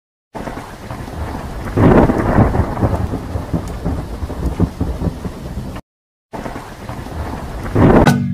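Heavy rain with a deep rumble of thunder about two seconds in and another just before the end. The storm sound cuts out completely for half a second about six seconds in.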